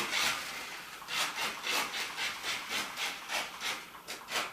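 Rhythmic rubbing or scraping strokes, about three a second, starting about a second in.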